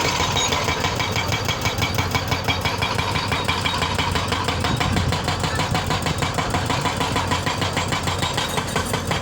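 Excavator's diesel engine running steadily with a rapid, even pulse.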